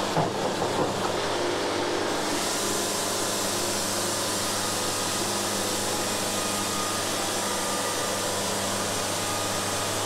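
Band sawmill sawing a board off a walnut log: the mill's motor runs with a steady hum, and the blade's hiss through the wood builds about two seconds in and holds steady.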